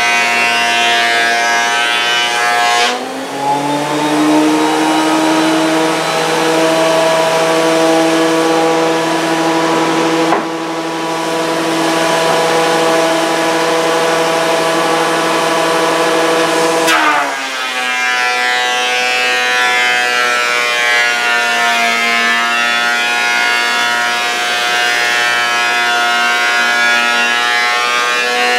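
Delta 12-inch portable thickness planer running with a loud, steady motor whine. About three seconds in the pitch drops sharply as a board enters the cutterhead and the motor labors under the cut. It holds lower for about fourteen seconds, then rises back to free-running speed once the board is through.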